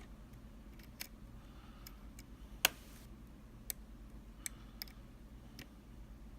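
A Mul-T-Lock Junior being picked: scattered light clicks of metal picking tools on the lock's pins, with one sharper click about two and a half seconds in.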